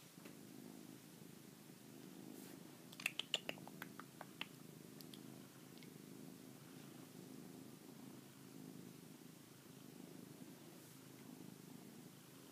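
Domestic cat purring softly and steadily, with a few faint clicks about three to four seconds in.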